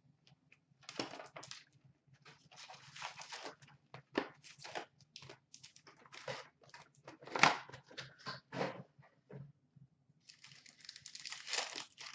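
Hockey card box and packs being opened by hand: cardboard and paper rustling, wrappers crinkling and tearing, and cards being handled, in irregular short bursts. The loudest burst comes about seven seconds in. A faint steady low hum runs underneath.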